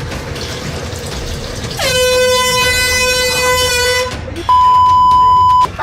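Handheld air horn blasted once for about two seconds, loud and harsh, then a steady higher-pitched tone for about a second that starts and stops abruptly.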